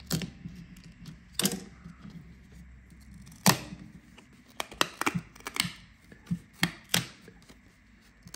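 Sharp plastic clicks and snaps, irregular and about nine or ten of them, as opening tools are worked around the edge of a Samsung Galaxy A23's heated back cover to pry it off. The loudest snap comes about halfway through.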